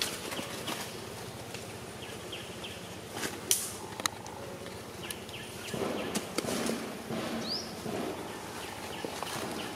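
Outdoor ambience with a faint steady insect hum, a few sharp clicks, and a stretch of rustling and scuffing about six seconds in, with one short rising chirp.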